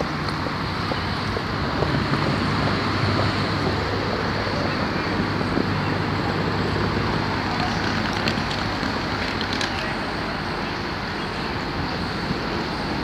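Steady road traffic noise from a busy street, with a low steady engine hum underneath.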